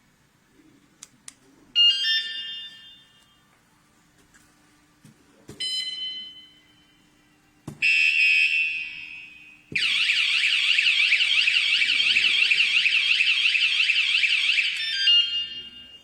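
Mengshen MS-Z08 wireless bike alarm sounding three short warning beeps a few seconds apart, then its full siren, a loud, rapidly warbling tone lasting about five seconds before it stops.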